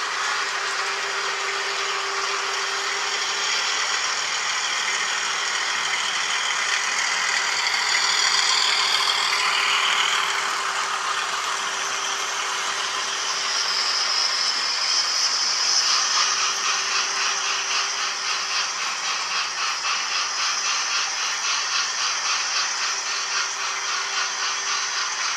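OO gauge model trains running on the layout's track, wheels rattling over the rails with a steady hum underneath. From about 16 seconds in the sound takes on a regular pulse.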